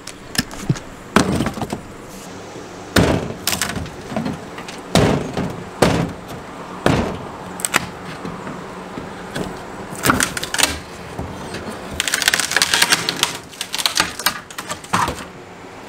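Old wooden door jamb being knocked and pried out of its opening: a series of separate sharp knocks and cracks, then a few seconds of rapid crackling and splintering about twelve seconds in as the jamb tears loose.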